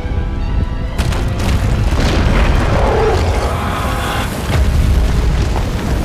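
Film sound effects of a huge fire dragon bursting up out of rocky ground: a deep rumbling boom, with a sudden crash of breaking rock and debris about a second in, all under orchestral film music.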